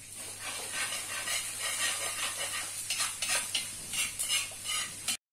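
Metal ladle scraping and clinking against a large wok as its contents are stirred, over a steady sizzle of frying. The sound cuts off abruptly near the end.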